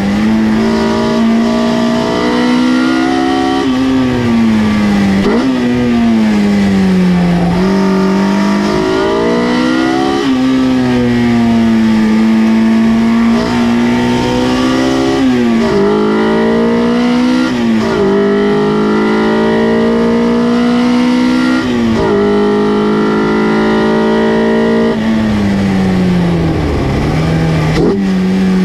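Honda K-series inline-four in a Mazda Miata running hard on track, heard from inside the cabin. The revs climb steadily in each gear and drop sharply at each gear change, again and again, with slower falls under braking.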